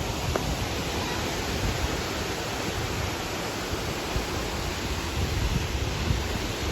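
Loud, steady rush of falling water from a waterfall, an even hiss over a low rumble.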